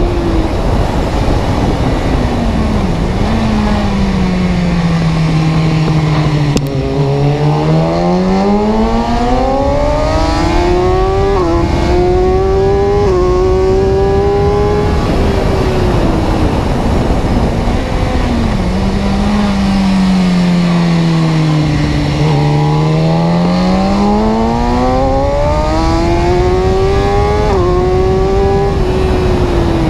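A car's engine and drivetrain noise with a whining tone under steady road noise. The tone sinks over several seconds, then climbs again with small jumps, twice over.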